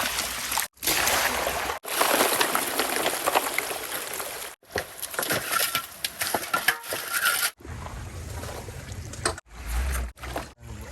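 Water splashing and trickling, a noisy wash with small splashes, cut off abruptly several times as short clips follow one another.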